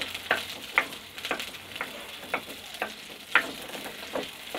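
Small onions (shallots) sizzling in sesame oil in an unglazed clay pot while a wooden spatula stirs them, scraping against the clay about twice a second. The onions are being fried towards golden brown.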